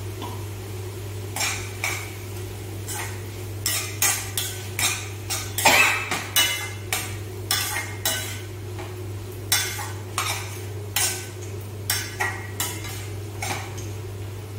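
A spatula scraping and stirring chopped onions and tomatoes around a stainless steel kadai: short scrapes against the pan, about one to two a second, starting about a second and a half in, over a faint sizzle from the frying vegetables.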